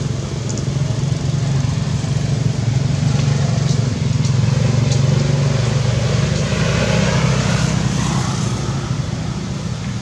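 An engine running steadily with a low hum, under a constant hiss.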